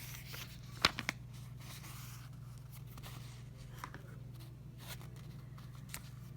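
Handling of a stapleless stapler and a stack of paper: a sharp click about a second in, followed quickly by two lighter ones, then faint rustling and a few small taps, over a steady low hum.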